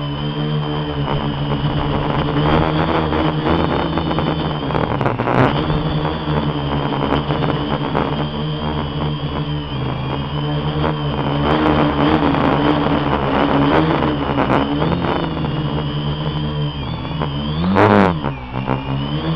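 A quadcopter's electric motors and propellers whining steadily, heard close up through the camera it carries, the pitch wavering a little as it manoeuvres. Near the end there is a short loud rush of noise, and the whine dips and then rises again.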